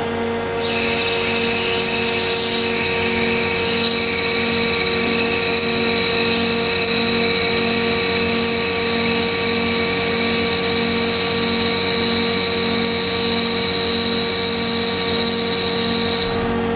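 Mori Seiki SL253BMC CNC lathe running: a steady machine hum with a high whine that comes in under a second in and cuts out briefly near the end, over a low tone pulsing about twice a second.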